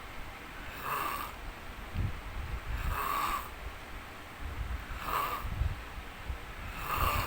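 A man snoring in his sleep, in a steady rhythm of about one breath every two seconds. Each breath has a low rattling snore and a shorter, higher breathy sound.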